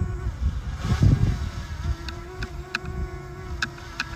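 Quadcopter drone's propellers buzzing steadily in flight, with low wind rumble on the microphone and a few short sharp ticks in the second half.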